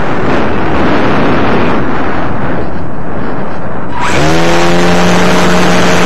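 Loud wind rushing over the microphone of an RC plane's onboard camera in flight. About four seconds in, the plane's electric motor and propeller throttle up: a whine that rises in pitch, then holds steady.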